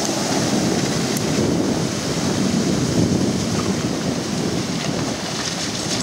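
Steady rush of shallow river water splashing and churning under the wheels of a Toyota Land Cruiser 120 as it drives through the ford.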